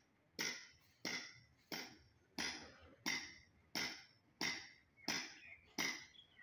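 A steady series of sharp knocks, about one and a half a second and nine in all, each ringing briefly.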